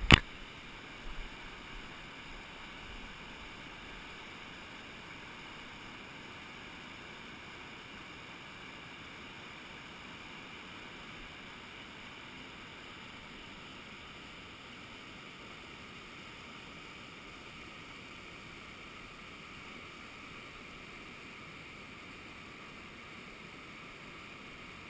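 Steady rush of a big whitewater rapid, even and unbroken. A sharp knock right at the start and a smaller one about a second in stand out above it.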